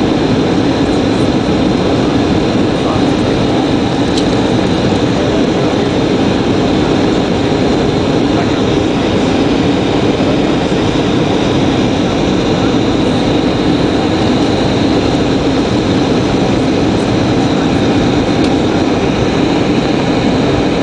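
Steady cabin noise of a jet airliner descending on approach, heard from a window seat beside its underwing turbofan engine: an even rushing hum with a low drone and a faint high whine.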